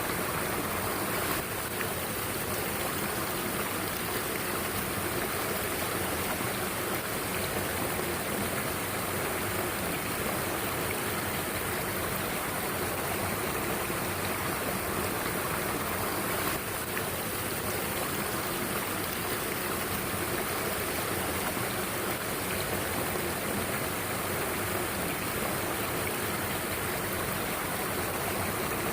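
Mountain stream's water running, a steady rushing noise.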